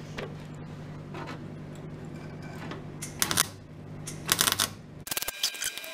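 Steady electrical hum with a couple of brief rustling bursts, then about five seconds in a MIG welding arc strikes and crackles rapidly as the torch welds the steel sill from underneath.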